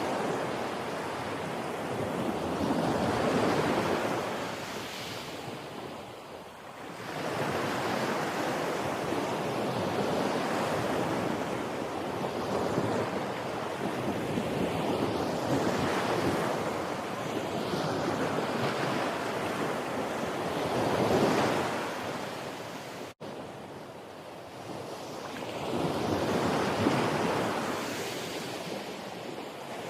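Ocean surf breaking and washing up a beach, swelling and fading in waves every several seconds, with a steady noisy wash between them. The sound cuts out for an instant a little after two-thirds of the way through.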